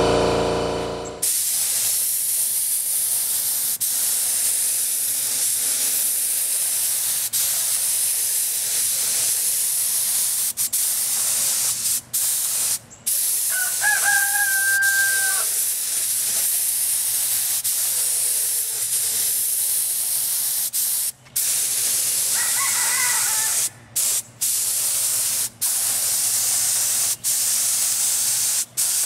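Gravity-feed compressed-air paint spray gun hissing steadily as it sprays. It starts about a second in and cuts out briefly several times as the trigger is let go. The owner says the gun is sputtering because the paint isn't thinned and filtered enough. Two short held calls sound over the hiss, one near the middle and a fainter one later.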